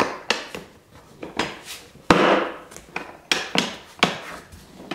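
Latches on a DeWalt ToughSystem 2.0 plastic tool box being worked by hand: a series of sharp clacks and clicks from the metal wire bails and plastic catches, with a heavier clunk about two seconds in.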